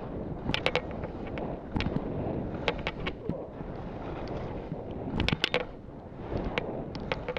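Skis scraping over rough, soft spring snow and moguls, with wind rushing on the helmet-mounted microphone. Sharp clacks and knocks come in clusters as the skis strike the bumps.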